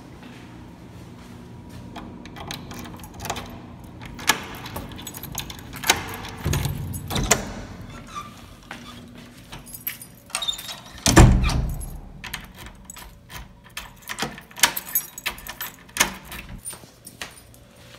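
Keys jangling and clicking in a door lock, with many small metallic rattles and one loud, heavy thud a little past the middle as the wooden door shuts.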